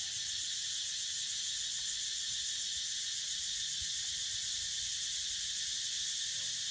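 Steady, high-pitched insect chorus with a fast, even pulse.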